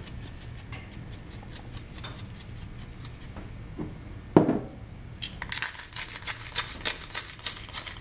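A single sharp knock just past halfway, then a seasoning shaker bottle shaken quickly over a bowl of boiled potatoes, its grains rattling in a fast, even run of clicks.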